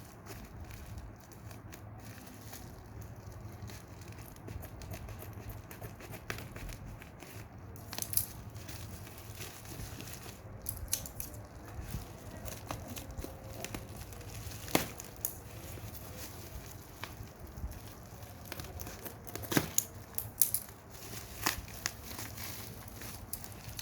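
Parcel packaging being opened by hand: crinkling and rustling wrap with scattered sharp snaps and tearing, the loudest cluster about twenty seconds in.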